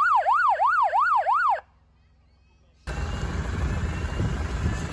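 Electronic emergency siren on an SES rescue ute sounding a fast yelp, its pitch sweeping up and down about three times a second, then cutting off suddenly about one and a half seconds in. After a moment of near silence, a steady low rumbling noise comes in.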